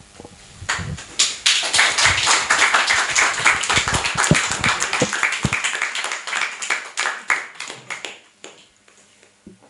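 Small audience applauding, starting about a second in and dying away near the end. A few low thumps in the middle come from a handheld microphone being put down on a table.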